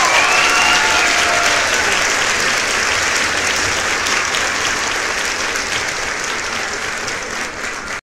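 Crowd applauding steadily: dense clapping, with a few cheering voices in the first second. It cuts off abruptly near the end.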